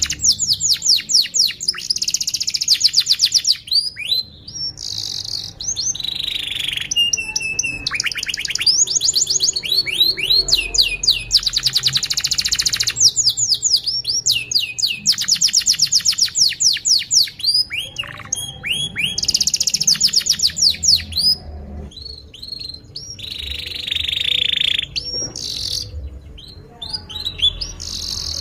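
Domestic canary singing a long, continuous song of fast trills. Each phrase is a rapid run of repeated notes, and the bird switches to a new phrase every second or two.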